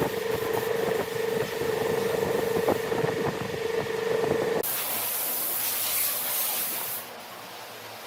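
A motor hums steadily over a rattling, scraping noise with a few knocks, then cuts off abruptly about four and a half seconds in. A burst of high hiss follows for about two seconds, and the last second is quieter noise.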